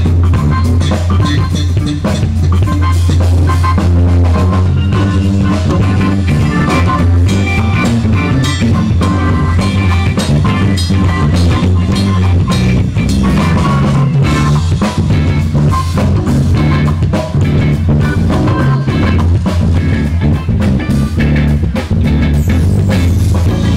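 Live band playing amplified music: electric guitar and a prominent electric bass line over drums, with a steady beat.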